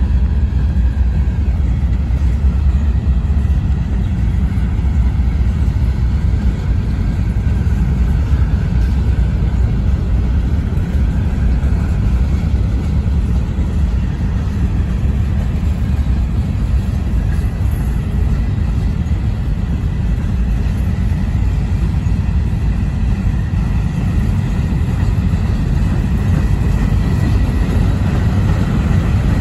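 Freight train of covered hopper cars rolling past close by: a steady low rumble of steel wheels on the rails.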